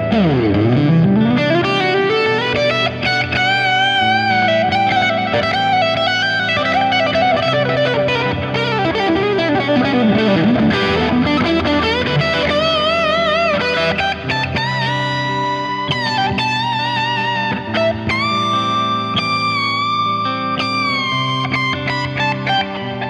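Electric guitar through a Fractal Axe-Fx III on a crunchy overdriven preset, improvising a lead line with wide vibrato and long held bent notes over a looped chord backing. A deep swoop down and back up in pitch comes about a second in and another around ten seconds in.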